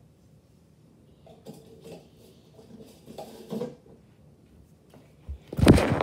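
Faint clinks and rustles of small items being handled, then loud rubbing and knocking about five and a half seconds in as the recording phone is picked up and its microphone is handled.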